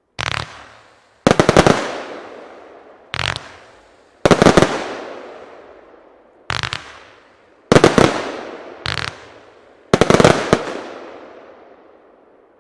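Albert Feuerwerk 'Push it to the Limit' 25 mm compound firework cake firing. About eight loud clusters of bangs come one every second or two, each followed by an echo that trails off over a second or two.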